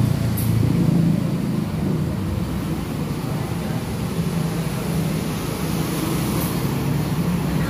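Steady low rumble of road traffic, swelling and easing slightly.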